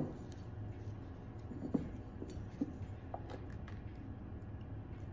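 Faint rustling and a few small snaps of baby's breath sprigs being pulled off a bunch by hand, over low room hum.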